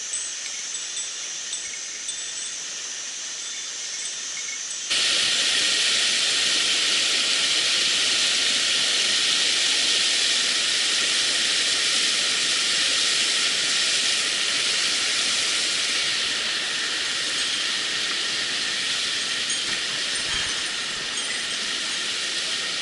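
Mountain stream water rushing, a steady hiss that jumps suddenly louder about five seconds in.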